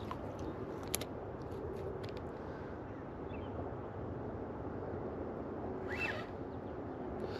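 Spinning reel being cranked on a retrieve, a faint whir over a steady rumble of wind on the microphone, with a sharp click about a second in.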